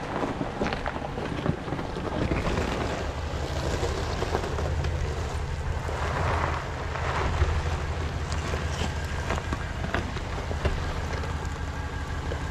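Jeep engine running steadily on a dirt and rock trail, with wind buffeting the microphone and a few sharp knocks.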